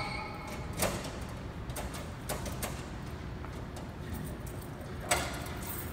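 A few scattered light metallic clicks and knocks from a key and the small metal key box below a fire alarm panel being unlocked and opened, with a sharper click about five seconds in, over a steady room hum.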